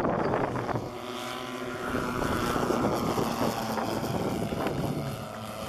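The four 35cc petrol engines of a large radio-controlled Super Constellation scale model droning together as the plane makes a low pass, their pitch dropping slightly as it goes by.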